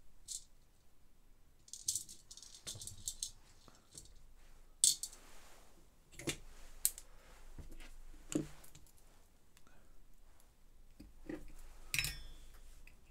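Small metal screws rattling in a shallow metal dish as they are picked out, then scattered sharp clicks and taps of small metal parts and screws being handled on the board.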